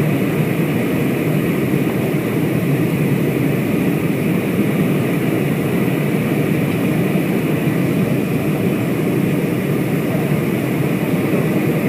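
Steady engine and airflow noise inside a jet airliner's cabin, heard from a seat over the wing, as the aircraft descends on approach with its flaps extended.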